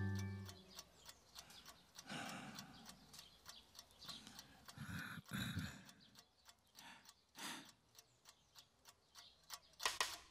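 Wall clock ticking steadily in a quiet room, with a few soft noisy swells between the ticks. A music cue dies away at the start.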